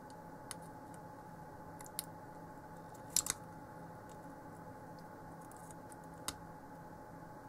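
A few small sharp clicks as hands handle and press the seven-segment LED displays on a clock-kit circuit board, the loudest a quick double click about three seconds in, over a steady faint hum.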